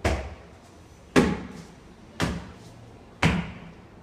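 Four heavy bangs on a door, evenly spaced about a second apart, each with a deep thud and a short ringing decay.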